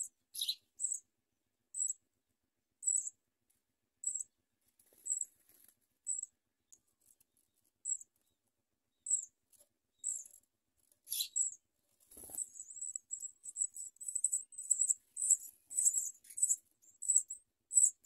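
House sparrow nestlings cheeping: short high-pitched peeps about once a second, breaking into fast, near-continuous begging chirps about two-thirds of the way through as they beg to be fed.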